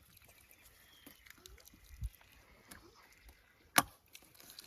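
Faint background with a soft low thud about two seconds in and a single sharp knock a little before the end.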